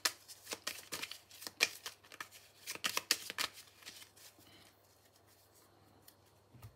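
A deck of Petit Lenormand cards being shuffled in the hands: a quick run of card flicks and clicks that thins out and stops about four seconds in.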